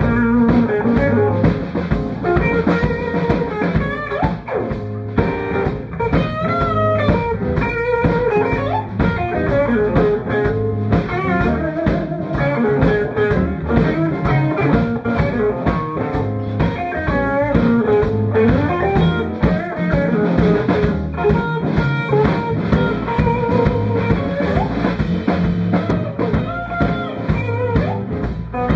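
Live blues band playing an instrumental stretch: electric guitars with bending notes over electric bass and a drum kit, with a steady beat.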